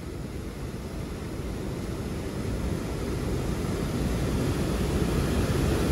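Steady rush of river water spilling over a weir, slowly growing louder.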